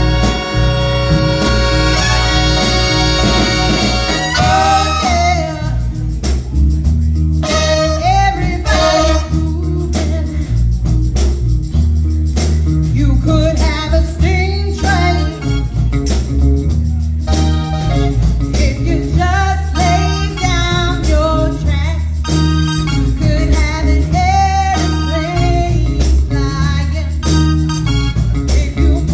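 Live band playing: a held instrumental chord, then a singer comes in about five seconds in over bass guitar and drums.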